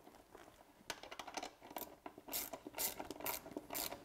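Hand ratchet wrench tightening a bolt on a transducer mounting bracket: scattered light clicks at first, then short runs of pawl clicks about two a second as the handle swings back and forth.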